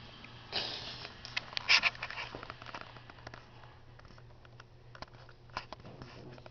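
Rustling, bumping and tapping from a handheld camera being moved right up against a kitten, a cluster of noises loudest about a second and a half in, then a few faint scattered clicks.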